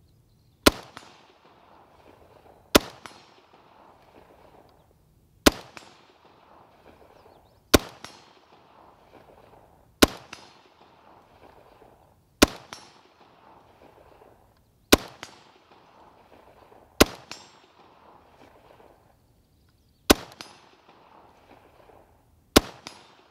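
Robinson Armament XCR-L semi-automatic rifle firing ten single, evenly paced shots, one every two to three seconds, each sharp crack followed by a rolling echo.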